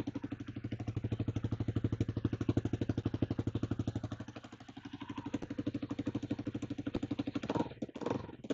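Kawasaki KLR250's single-cylinder four-stroke engine idling with a fast, even exhaust beat that dips briefly about four seconds in; the exhaust is blowing at the manifold.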